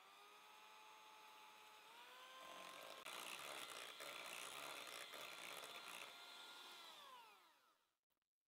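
Philips electric hand mixer running, its beaters mixing yogurt into creamed butter in a glass bowl. The motor whine steps up in pitch twice, about two and three seconds in, as the speed is raised, then winds down and stops near the end.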